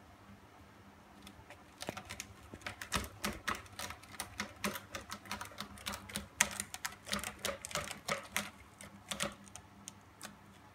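A cat's claws raking a sisal-rope scratching post in a quick, irregular run of rasping scratches, starting about two seconds in and dying down near the end.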